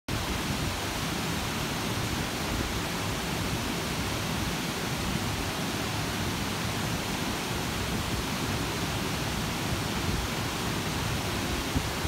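Water cascading down the terraced concrete steps of a large stepped fountain into a sunken pool, a steady rushing hiss of falling water.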